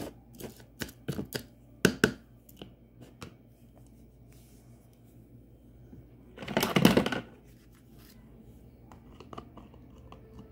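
Spoon stirring rice in a small pan: a run of light clicks and knocks for the first few seconds, then a louder burst of scraping noise lasting under a second past the middle, and a few faint clicks near the end.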